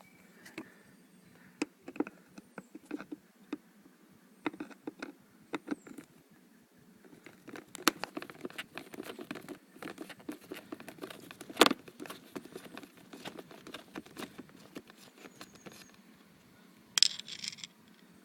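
Sporadic clicks, taps and light clatter of hand tools and small screws and nuts while a car air-conditioning evaporator housing is being unbolted, with one sharp knock a little past the middle and a brief rattle near the end.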